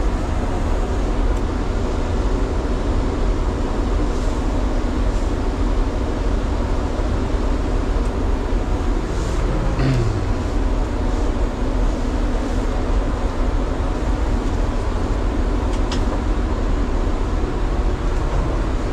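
Steady in-cab running noise of a battery-converted trolleybus moving slowly over a wet gravel yard: a continuous deep rumble with a hiss on top, and a brief falling low tone about halfway through.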